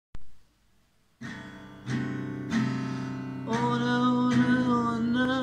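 A click, a second of near silence, then a cutaway acoustic guitar strummed in slow chords from just over a second in, a new chord every second or so. A man's singing voice joins about halfway.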